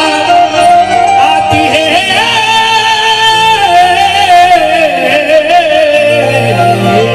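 Bhim geet song: a singer holds long, wavering, ornamented notes over steady instrumental accompaniment, and a low steady bass note comes in strongly about six seconds in.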